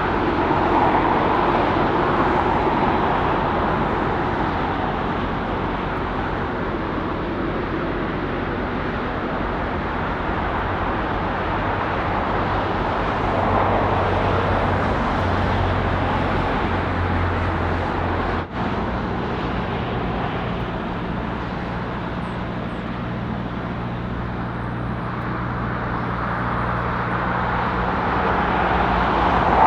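Steady jet-engine rush of a Boeing 747-8 freighter taxiing, blended with road traffic noise. There is a split-second dropout about two-thirds of the way through.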